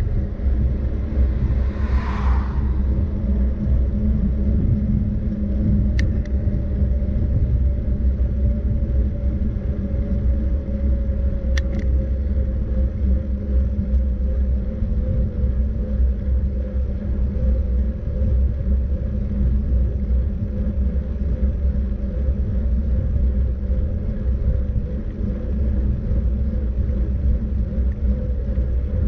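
Steady low rumble of a vehicle on the move, with a faint steady tone running through it. A short whoosh comes about two seconds in, and two sharp clicks follow later.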